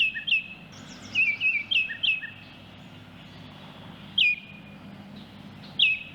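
Baltimore oriole singing clear whistled notes: two quick phrases of several slurred whistles in the first two seconds, then two single down-slurred whistles about four and six seconds in.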